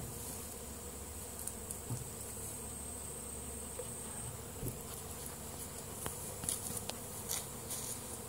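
Disturbed honeybee swarm buzzing steadily. A thin high whine fades out about halfway through, and a few short sharp ticks come near the end.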